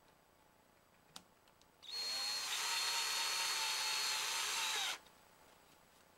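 Cordless drill-driver running for about three seconds as it drives a screw into a wall-mounted switch panel's frame: a steady motor whine that starts about two seconds in and cuts off suddenly.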